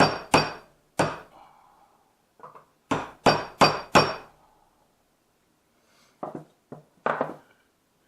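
Hammer tapping handle pins through the knife's scales: sharp metallic taps, three quick ones, then a run of four about three seconds in, with a few lighter taps near the end.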